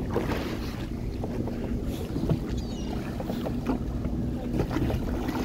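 Boat engine running with a steady low hum, under wind noise on the microphone, with short irregular clicks and knocks scattered through.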